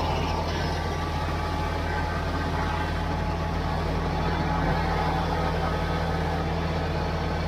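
Kubota BX23S compact tractor's three-cylinder diesel engine running at a steady speed, a constant low drone with no change in pitch.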